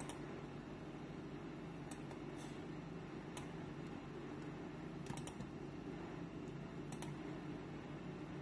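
A handful of sparse, sharp computer-mouse clicks, with two close together about five seconds in, over a steady low hum.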